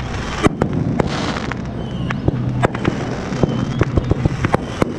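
Fireworks going off: an irregular string of sharp bangs and crackles, with a brief hissing rush about a second in.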